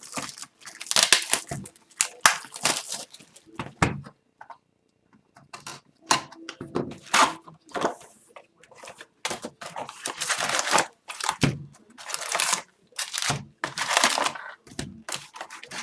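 Tearing and crinkling of packaging as a sealed box of hockey cards and its wrapped packs are torn open and handled, in irregular bursts with a short lull about four seconds in.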